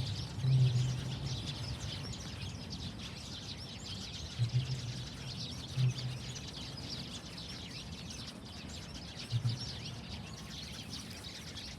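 Many small birds chirping continuously outdoors, with a few brief low rumbles at intervals.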